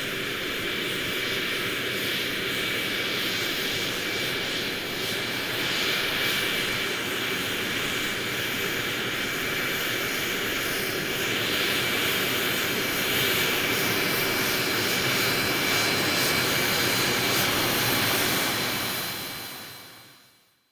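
Jet airplane engine running steadily, a dense rushing noise with a thin high whine over it. It grows slightly louder past the middle, then fades out over the last couple of seconds.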